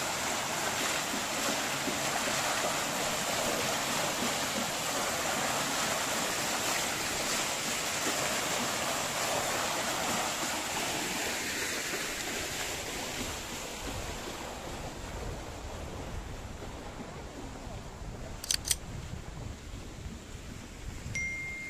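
Flowing water of a spring-fed river, a steady rushing that fades after about fourteen seconds. Two sharp clicks come near the end.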